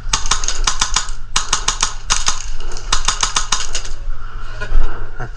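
Airsoft gun firing four quick strings of sharp, snappy shots, several shots a second, over about three and a half seconds.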